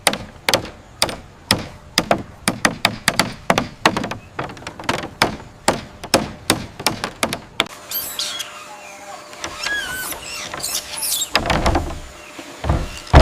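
Rapid, even hammer-like knocks, about three strikes a second, for most of the first half. Then they stop, and high squeaky chirps and squeals follow, with a louder rustling scrape near the end.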